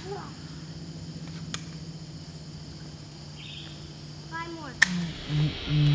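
Toy rifle firing: two sharp snaps, one about a second and a half in and a louder one near the end, over a steady low hum. A child makes a short falling vocal sound just before the second snap, and music with a pulsing beat starts near the end.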